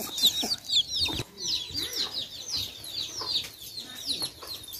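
Chickens clucking, with many short, high, falling calls in quick succession and a single knock about a second in.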